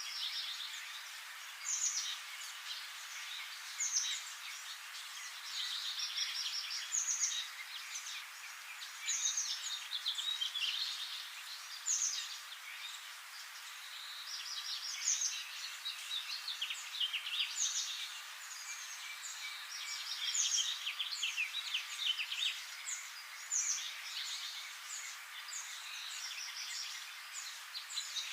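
Many birds chirping continuously, with short high calls overlapping one another throughout.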